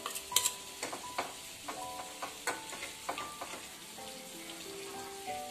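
Stuffed brinjals sizzling in a pan with a steady hiss, broken by sharp clicks of a metal spoon scraping and tapping leftover masala out of a steel bowl into the pan. Soft background music with held notes underneath.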